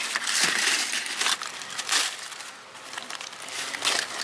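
Crinkling and crackling of charred aluminium foil as hands pull open the wrapping of a fish baked in the fire, with sharp crinkles here and there and a quieter moment a little past halfway.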